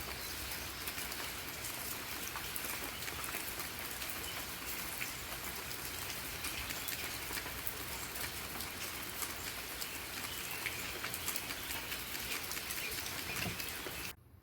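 Steady rain falling, with many separate drop hits on a surface; it cuts off suddenly near the end.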